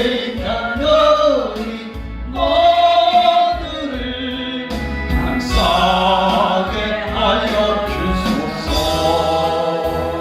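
A choir singing a Christian hymn over instrumental accompaniment, with long held notes.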